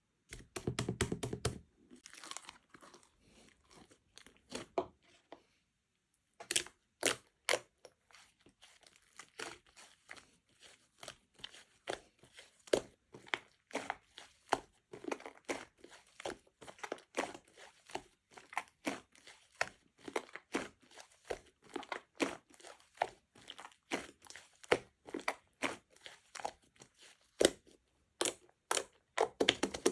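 A close-up run of sharp crackles and clicks, several a second, with a louder rustling spell at the start and a short pause about six seconds in.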